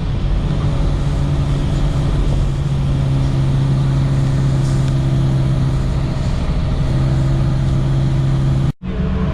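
Motor vehicle engine running at a steady speed, a loud, even low drone, with a brief break near the end before it resumes.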